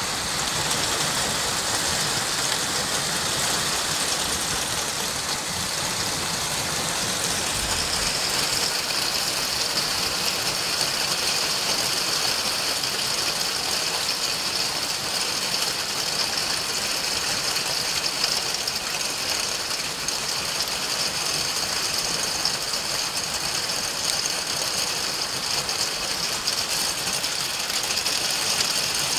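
Heavy downpour of rain mixed with hail pelting wet asphalt and trees: a dense, steady hiss that grows sharper about eight seconds in.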